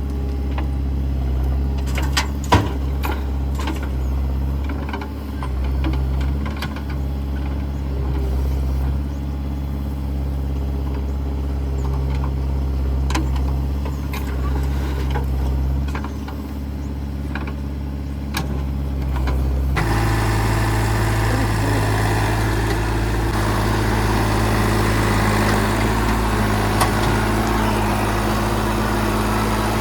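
Heavy diesel machinery engine running steadily, with a few sharp metallic clanks in the first part. About twenty seconds in the sound changes abruptly to a louder, rougher engine running.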